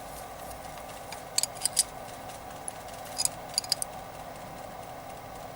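A few light metallic clicks and ticks in small groups as the nut on a DC jack is tightened down, over a steady background hum.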